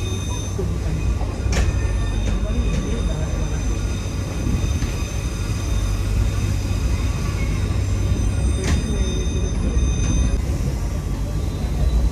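Passenger train running on the track: a steady low rumble with a few sharp knocks. Faint high-pitched steady tones stop about ten seconds in.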